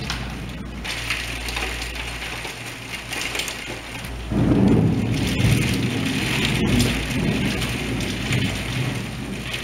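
Heavy rain falling steadily, with a low rumble of thunder rolling in about four seconds in and carrying on.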